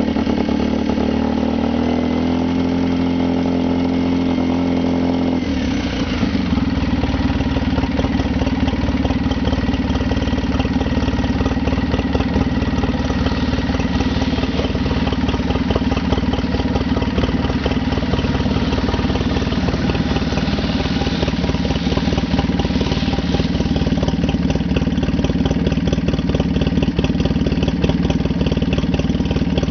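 Polaris Sportsman 800 ATV's twin-cylinder engine running as the quad wades through deep floodwater. Its note changes abruptly about five seconds in, then holds steady.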